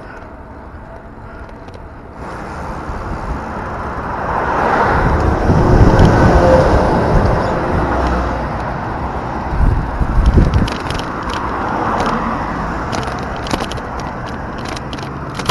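Road noise from a moving bicycle: wind rushing over the camera microphone and tyres on asphalt. A motor vehicle goes by, swelling and fading about five seconds in, with a run of light ticking near the end.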